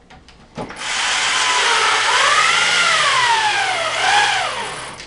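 Power drill motor running for about four seconds, starting under a second in. Its pitch rises, sinks slowly as the load comes on, then briefly rises and falls again before it stops.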